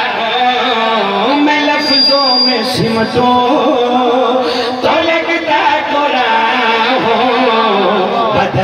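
A man's voice chanting a melodic religious recitation into a microphone, amplified loud through a public-address system, with held notes that bend up and down.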